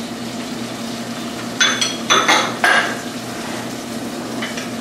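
Three or four sharp clinks of a ceramic bowl knocking against the rim of an enamelled cooking pot about a second and a half in, as tomatoes are tipped in onto sautéed onions, with a couple of lighter taps near the end. A steady low hum runs underneath.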